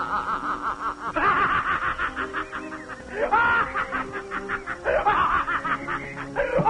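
Men laughing hard together in rapid, repeated ha-ha bursts, with music underneath.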